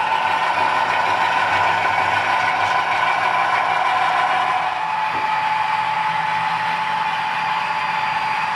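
HO-scale model train running past: a diesel locomotive's LokSound decoder plays a steady engine sound through the model's small speaker, over the rolling clatter of the hopper cars' wheels on the track. About halfway through the engine tone settles into a single steadier hum.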